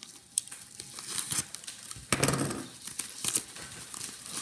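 Yellow kraft padded mailer being handled and opened by hand: paper crinkling, rustling and tearing in irregular bursts, loudest about two seconds in.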